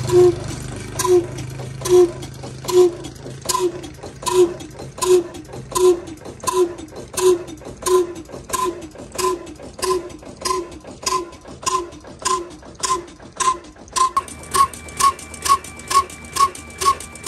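Exhaust beats of a large old black oil (diesel) stationary engine running slowly: a sharp, regular pop at each firing, about one and a half a second and gradually quickening. About fourteen seconds in the beats come faster, about three a second, with a faint steady whine under them.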